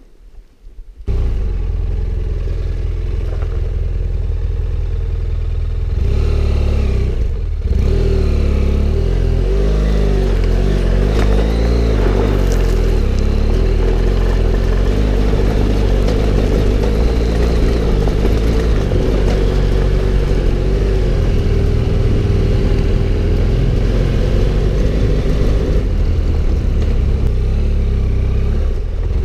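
Adventure motorcycle engine running under way, cutting in suddenly about a second in. The engine note rises and falls between about six and eight seconds in, dips briefly, then holds steady.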